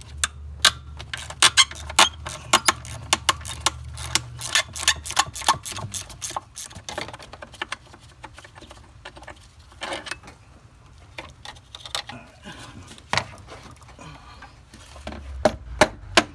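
Hand ratchet with a 10 mm socket clicking in fast runs as it backs out the thermostat housing bolts on a Ford 4.6 V8. This is followed by scattered clicks and knocks of loosened metal parts being handled, with a short cluster of clicks near the end.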